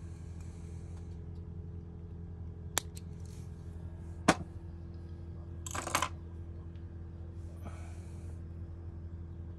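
A few sharp clicks and a short rustle from small carp-rig tackle being handled with a multitool and a baiting needle, over a steady low hum.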